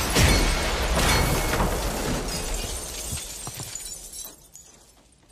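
Cartoon sound effect of a punch smashing through a wall: a loud crash and shattering, a second crash about a second in, then a few small clinks of falling debris as it dies away about four seconds in.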